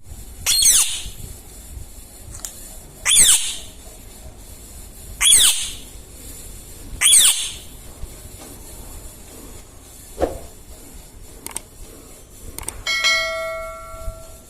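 Indian ringneck parrot giving four loud, shrill screeches about two seconds apart, each a quick sweep in pitch. Near the end comes a short ringing tone.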